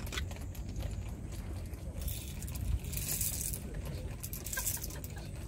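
Coffee beans rattling as they are tipped from a canister into a hand coffee grinder, in a few short bursts, over a steady low rumble.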